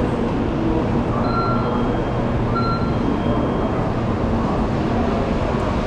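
Shinkansen platform ambience: a steady low rumble from the bullet train standing at the platform, with two short electronic beeps about a second apart.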